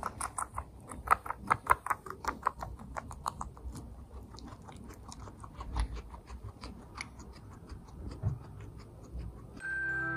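Guinea pig chewing a piece of cherry tomato: a quick run of wet crunching clicks, about four a second, loudest in the first few seconds and then fainter. Soft waltz music comes in near the end.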